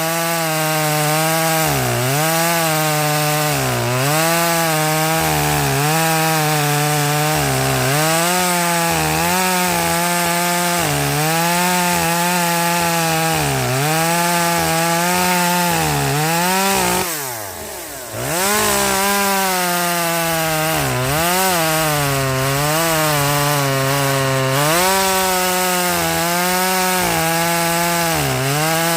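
Echo 2511P small two-stroke chainsaw running at high revs while cutting wood, its engine note sagging and recovering every couple of seconds as the chain bites. About 17 seconds in the revs fall away briefly, then pick back up.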